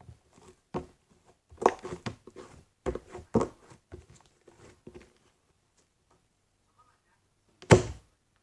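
Slime being squished and stretched by fingers: a run of short sticky squelches and small pops, then a pause and one loud squelching pop near the end.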